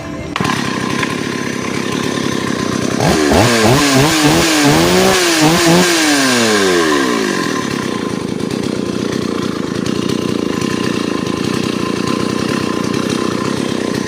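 Stihl MS 381 two-stroke chainsaw engine running. About three seconds in it is revved up and down several times, then it settles back to a steady lower speed.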